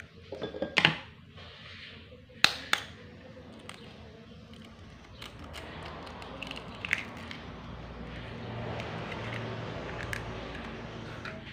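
Eggs cracked against a steel knife blade over a bowl of batter: a few sharp taps of shell on metal, the loudest a quick pair about two and a half seconds in. A low steady hum grows through the second half.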